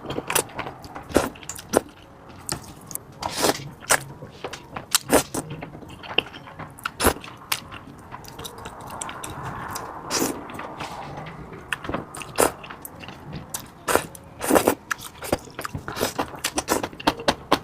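Close-miked eating: a person biting and chewing food, with frequent irregular sharp mouth clicks and smacks.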